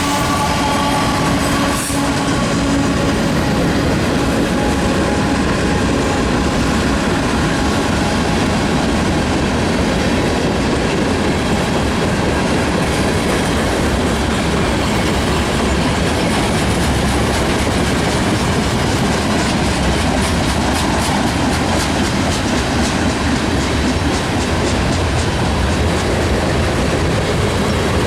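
A long Norfolk Southern freight train's cars rolling past, a steady loud rumble of wheels on rail, with clickety-clack from the wheels over rail joints that is plainest near the end. The horn's last note dies away in the first couple of seconds.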